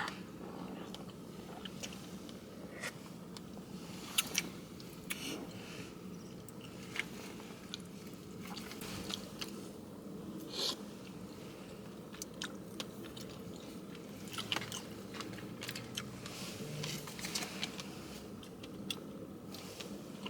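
Close-up eating sounds: a person biting and chewing food, with irregular small crunches and clicks over a steady low room hum.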